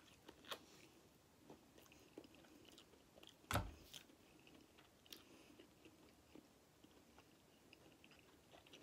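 Faint chewing and small wet clicks of a person eating a sauced chicken wing and pulling it apart by hand, with one sharp knock about three and a half seconds in.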